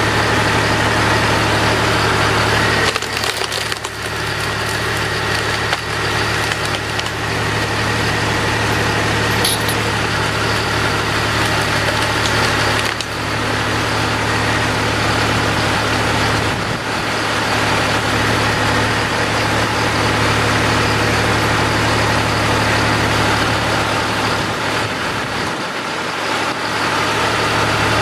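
Tractor engine running steadily while driving a log splitter, its sound dipping briefly four times as logs are split, with wood cracking.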